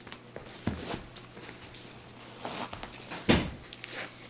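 Shoes shuffling and stepping on a tiled entryway floor, with one heavy thump of a shoe landing close to the microphone a little over three seconds in.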